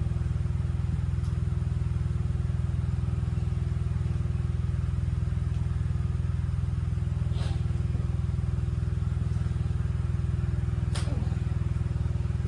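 The 1976 John Deere 300 lawn tractor's engine gives a steady, low, fast-pulsing mechanical drone that stays at an even level throughout, with a few faint clicks.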